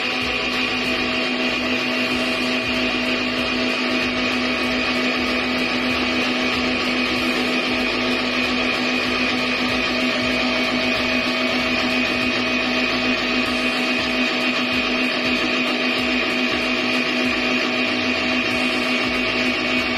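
Electric stand mixer running at a steady speed, its motor giving one unchanging whine as the beater churns a mixture in a stainless steel bowl.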